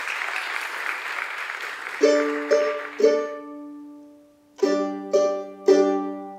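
Audience applause for about two seconds, then background music on a plucked string instrument. It picks ringing chords: three about half a second apart, a short pause, then three more.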